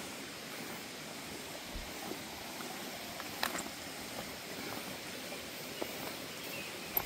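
Steady hiss of water outdoors with scattered light ticks and patters, and a couple of sharper clicks, about halfway and near the end.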